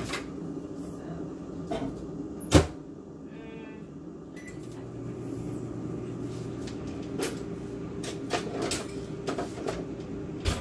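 Kitchen cupboard doors and drawers being opened and shut, with one sharp knock of a door closing about two and a half seconds in and lighter clicks and knocks near the end, over a steady low hum.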